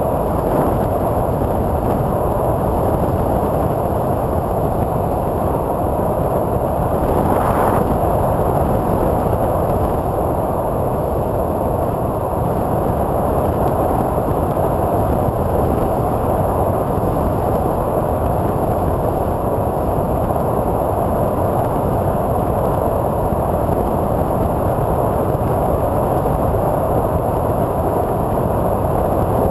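Steady rush of airflow and propeller noise on board a TwinStar II twin electric-motor RC plane in flight, with a brief swell a little past seven seconds in.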